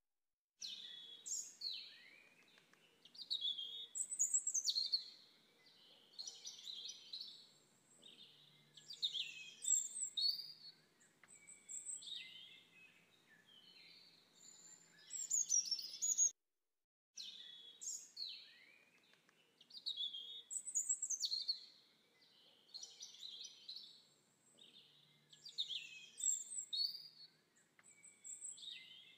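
Birdsong: several birds singing and chirping in quick, high, sliding phrases, one after another. There is a brief dropout to silence about halfway through.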